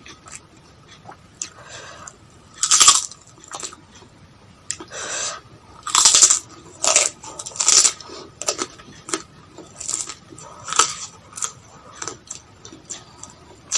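A person chewing and crunching food close to the microphone, in irregular bursts, loudest about three seconds in and again between six and eight seconds in.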